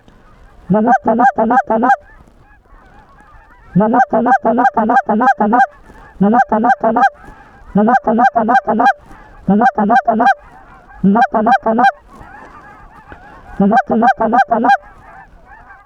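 Hand-blown goose call honking in quick, evenly spaced runs of four to six notes, repeated about seven times with short pauses between runs. It is calling to Canada geese working the decoys.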